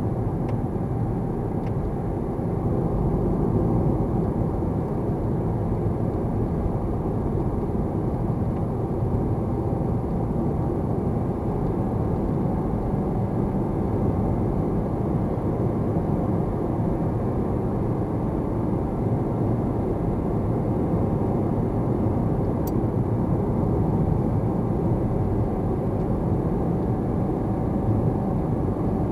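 Steady road noise of a car driving at a constant pace: an even rumble of tyres on the road and the engine.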